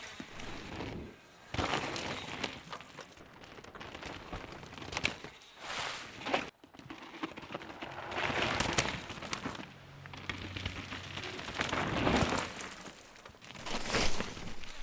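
Santa Cruz V10 downhill mountain bike ridden fast on a dirt trail: knobby tyres crunching and skidding over loose dirt, with sharp clatters, swelling as the bike rushes past and fading again several times. The sound cuts off abruptly about halfway through.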